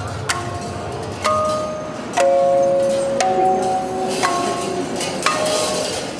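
Glass bottles hung on strings struck one at a time, six strikes about a second apart. Each strike rings on with a clear pitch, the pitch changing from strike to strike like a simple tune.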